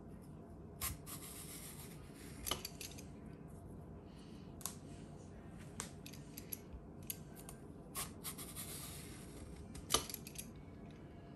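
Vegetable peeler drawn lengthwise along a raw zucchini, shaving off thin ribbons: repeated crisp scraping strokes, each lasting about a second, with sharp clicks and light knocks as the blade catches and is set down between strokes.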